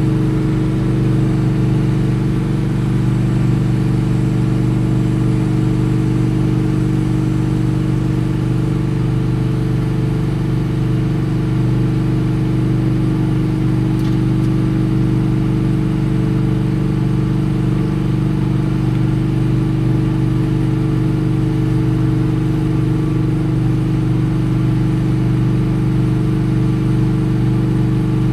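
An engine running at a steady speed, giving a constant low drone that holds the same pitch throughout.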